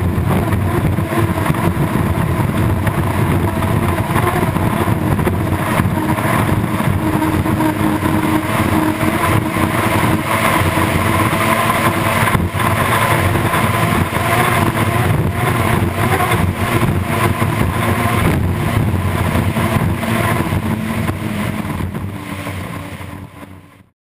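Unlimited hydroplane's turbine engine running flat out, heard from on board: a steady whine under the rush of wind and water spray, fading out near the end.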